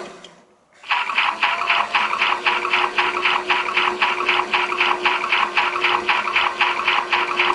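A battery-powered toy washing machine runs with a steady hum and a rhythmic churning of about four to five pulses a second, washing clothes in water. It stops briefly at the start and starts again just before a second in.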